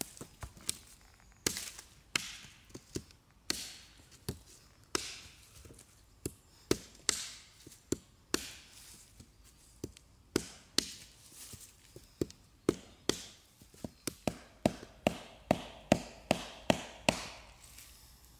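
A blade chopping wood: a steady run of sharp, separate strikes, about two a second, coming faster and louder near the end.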